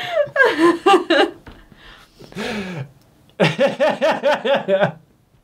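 People laughing: a burst of laughter, a breathy exhale about two seconds in, then a quick run of even 'ha-ha' pulses that stops shortly before the end.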